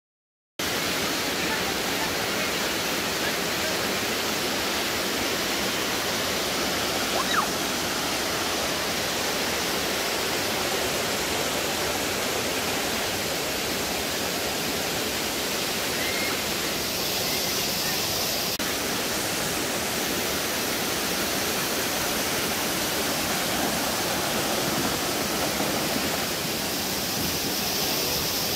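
Fast shallow water rushing down a sloping rock slab (a natural water slide), a steady, even rush of white water that starts about half a second in.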